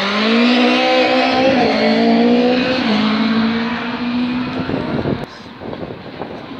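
A rallycross car's engine passes close at high revs, its pitch stepping down twice at gear changes about one and a half and three seconds in. It fades as the car drives away down the straight.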